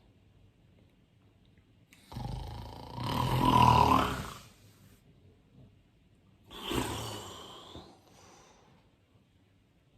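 A person snoring: two snoring breaths about four seconds apart, the first longer and louder.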